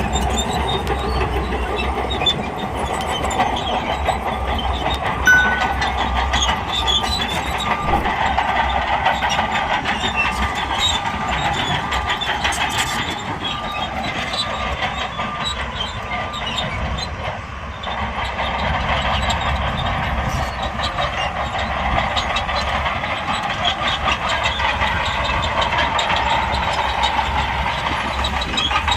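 Shantui crawler bulldozer working: the engine runs steadily under constant clanking and clicking from its steel tracks.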